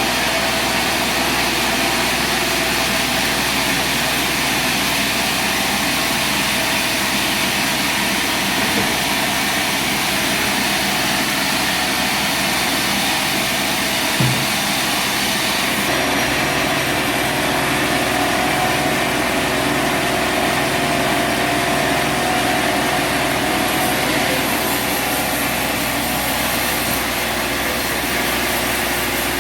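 Sawmill engine running steadily under load. About halfway through the sound shifts a little: the hiss dims and a faint whine comes in. A light knock comes shortly before that.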